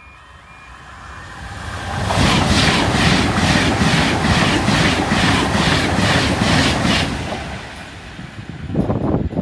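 Avanti West Coast express passenger train approaching and passing at speed, its wheels clattering in an even rhythm of about two beats a second, then fading away. Wind buffets the microphone near the end.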